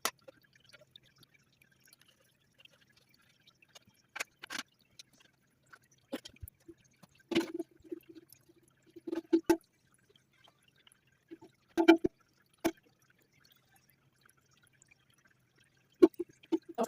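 Sped-up sound of toilet tank parts being handled and fitted: scattered sharp clicks and knocks and a few short clusters of clunks, with water sounds from the tank.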